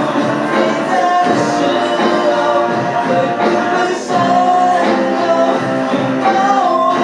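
Live rock band playing a song, with a singer holding long notes over the band.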